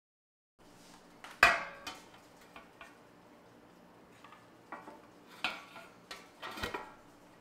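Metal cooking pot clanking and knocking against a stainless steel serving platter as it is turned over to empty the biryani out. There is one sharp, loud clank about a second and a half in, then several lighter knocks and clatters.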